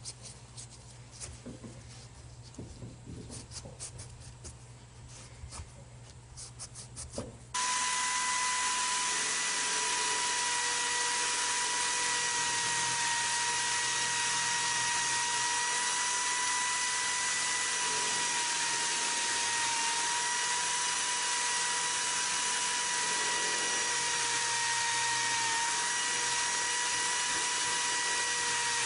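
Irregular scraping and rubbing strokes on a metal part. About seven and a half seconds in, a small power tool switches on abruptly and runs steadily with a constant whine.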